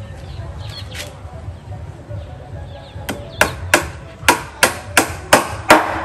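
Claw hammer driving a nail into a wooden tabletop: a faint knock about a second in, then a quick run of about eight sharp blows, roughly three a second, through the second half.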